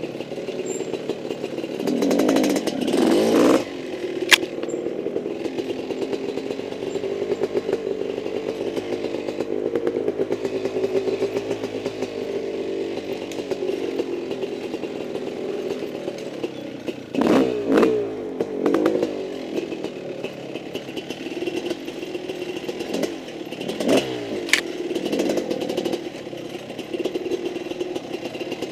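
Mountain bike rattling and clattering down a rocky singletrack trail, heard from a camera mounted on the bike or rider, with a steady buzzing drone. There are louder rough, jolting patches near the start, about two-thirds of the way in and again a little later, plus a sharp click about four seconds in.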